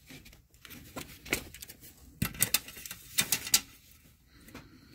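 Handling noise while a pane of glass is measured with a tape measure: irregular sharp clicks and light taps, bunched about two seconds in and again about three seconds in.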